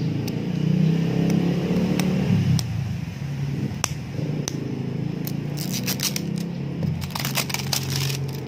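Plastic shrink wrap being picked at and peeled off a cardboard box: scattered sharp crackles at first, becoming dense crinkling from a little past halfway. A steady low drone runs underneath.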